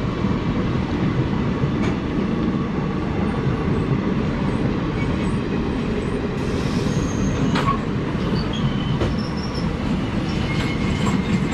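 KSR Bengaluru–Ernakulam Intercity Express chair-car coaches passing close on the adjacent track: a steady rumble of wheels on the rails, with a few sharp clicks and brief high-pitched wheel squeals in the second half.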